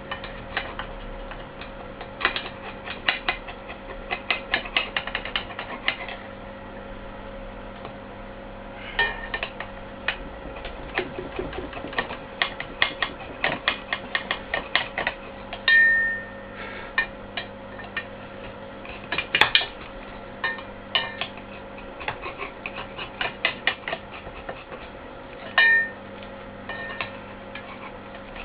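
Hands working with tools and parts on a loudspeaker being repaired: clusters of irregular clicks and light metallic clatter, with a couple of brief squeaks, over a steady hum.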